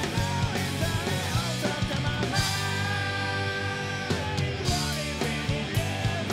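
Rock song playing, with drums, electric guitar and singing.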